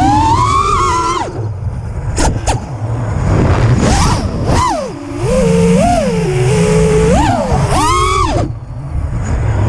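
Five-inch FPV racing quadcopter's Rotor Riot Acro 2207 2450kv brushless motors and three-blade props whining, the pitch rising and falling with each throttle punch. The whine drops away twice, about a second in and again near the end, leaving a rushing hiss with a couple of short blips.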